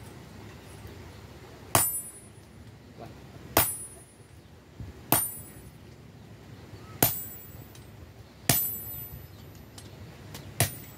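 Hand hammer striking red-hot bearing steel held in tongs, forging it into a badik blade: six separate blows about one and a half to two seconds apart, each with a short metallic ring.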